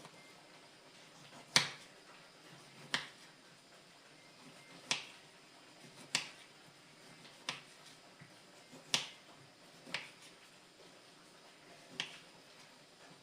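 A series of about eight sharp clicks or snaps, spaced irregularly about one to two seconds apart, over faint room tone.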